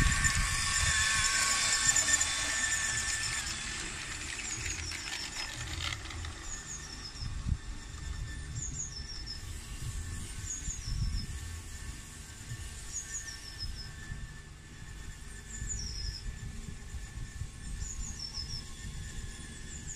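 Garden-railway model locomotive running past on curved track with a steady high squeal, loudest for the first few seconds and then fading as it draws away. A high double chirp then repeats about every two seconds, over a gusty low rumble of wind on the microphone.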